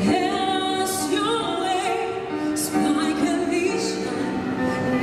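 A woman singing into a microphone, holding long notes with vibrato over instrumental backing music.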